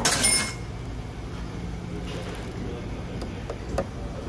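A short clinking, crinkling clatter in the first half-second as a plastic-wrapped packet of nori is lifted from a wicker basket, over a steady low hum of the ferry. A light tap near the end as the packet is set down on a plastic tray.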